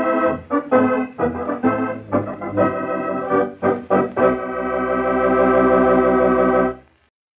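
Organ playing the show's closing music: a run of short chords, then a long held final chord from about four seconds in that cuts off near the end.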